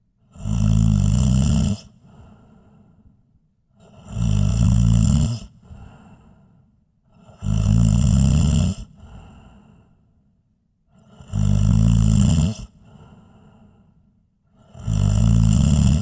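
A person snoring loudly: five snores, each about a second and a half long and coming about every three and a half seconds, each followed by a fainter breath.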